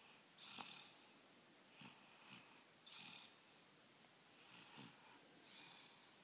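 Soft snoring: an airy, hissing breath about every two and a half seconds, with small snuffles between.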